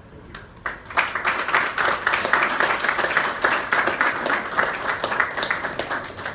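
A crowd of people applauding with hand claps, starting about a second in and thinning out near the end.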